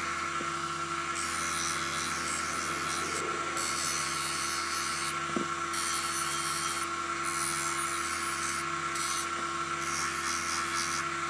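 Bucktool grinder motor running steadily with a constant hum and whine, while a kitchen knife edge is pressed against the spinning polyurethane polishing wheel in repeated passes, each giving a hiss with short breaks between them.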